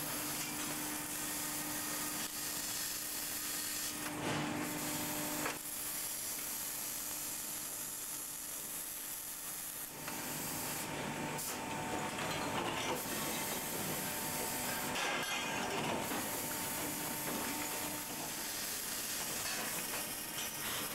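Steady hissing noise of a metal-fabrication shop floor with a low, steady machine hum, in a factory bay where MIG welding is going on.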